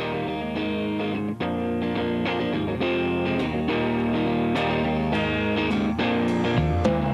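Guitar-led rock music: held chords with notes plucked and strummed over them at a steady pace.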